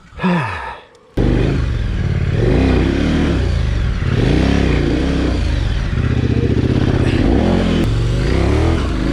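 KTM 1090 adventure bike's V-twin engine starting up about a second in, then running and being revved up and down.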